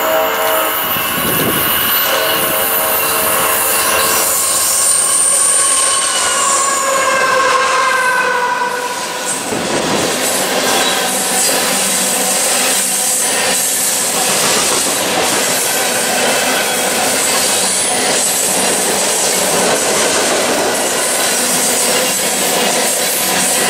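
A BNSF freight locomotive's air horn sounds a chord for roughly the first eight seconds as the train arrives. Then a long string of covered hopper grain cars rolls past close by, wheels clattering over the rail with a high steady squeal.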